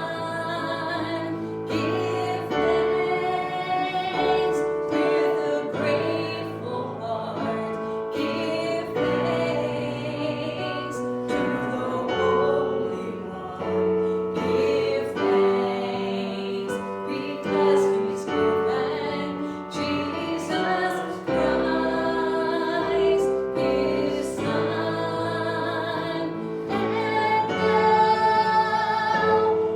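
Singing with piano accompaniment: a slow song with long held notes, typical of a hymn.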